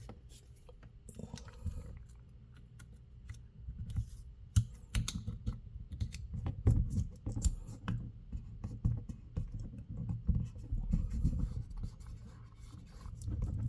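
Clear adhesive tape being pulled and pressed onto plastic trim by hand: irregular scratching and scraping with scattered small clicks and handling noise.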